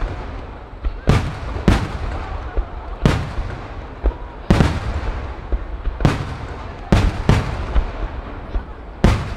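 Aerial firework shells booming in quick succession: about eight sharp reports at uneven intervals, each trailing off, over a continuous low rumble.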